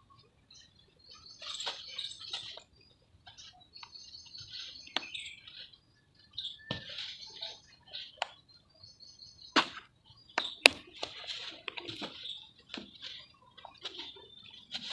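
Dry sand-and-cement shapes dipped in water, crackling and hissing as they soak and crumble, in clusters a second or two long. Several sharp clicks come in the second half, the loudest sounds here.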